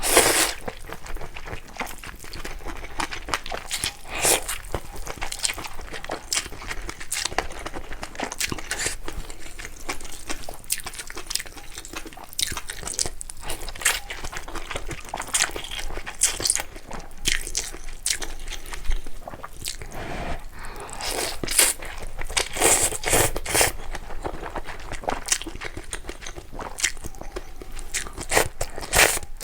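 Close-miked mukbang eating sounds: a person biting, chewing and slurping ramen noodles, with crunchy bites and wet mouth noises coming every second or so.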